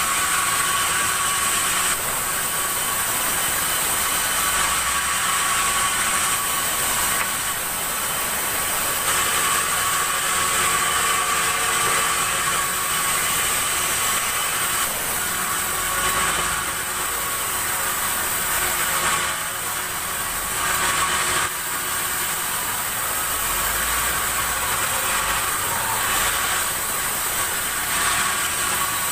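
Sawmill saw machinery running steadily, with a constant high whine over its mechanical noise.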